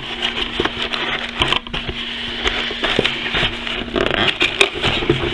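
Cardboard box and packaging being handled: rustling, scraping and small knocks as a keyboard palm rest is pushed back into its box, over a steady low hum.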